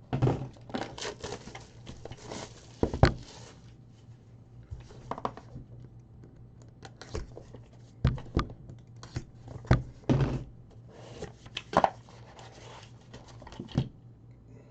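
A sealed trading card box being opened by hand: plastic wrap crinkling and tearing, cardboard and cards being handled, with a run of irregular sharp clicks and knocks.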